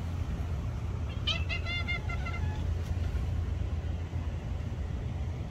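Steady low outdoor rumble. About a second in comes a short run of quick, repeated high chirping notes lasting just over a second.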